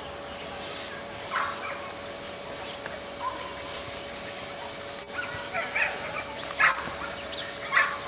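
Ducks calling: short, harsh calls, one about a second and a half in and a quicker run in the second half, the loudest near the end, over a faint steady hum.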